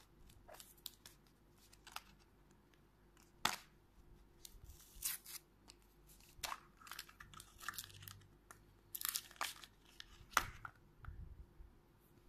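Paper sticker seal being peeled and torn off a clear plastic capsule egg, with crinkling and the click of plastic as the egg is handled and opened. It comes as irregular crackles with a few sharper snaps.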